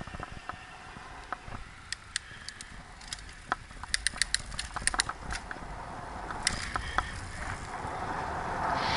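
Road bicycle picking up speed from a standstill: a run of sharp clicks and ticks from the bike, thickest through the middle, over a low rumble of tyres on tarmac. Near the end, wind noise on the microphone builds as the speed rises.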